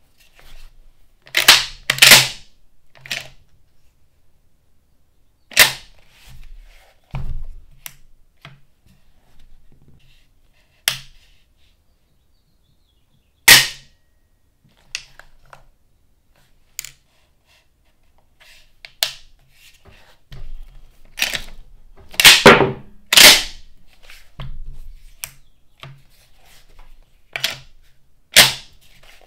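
Benelli M4 semi-automatic shotgun's action worked by hand with dummy shells: about a dozen sharp metallic clicks and clacks spread out with pauses between, as the bolt is cycled, the cartridge release lever pressed and the trigger dry-fired.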